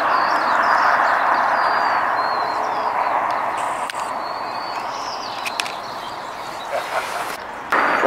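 Road traffic noise from a passing vehicle, an even hiss that slowly fades away, with faint high bird chirps over it.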